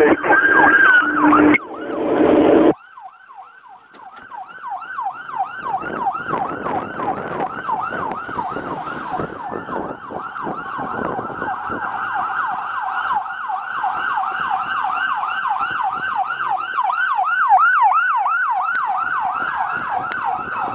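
Police siren sounding during a pursuit. A slow rising and falling wail is cut by a short burst of noise, then from about three seconds in the siren switches to a fast yelp of about four sweeps a second that grows louder.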